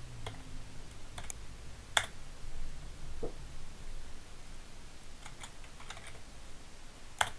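Computer keyboard keys clicking a few at a time, with a cluster of key presses in the second half as a short password is typed; the two loudest clicks come about two seconds in and near the end.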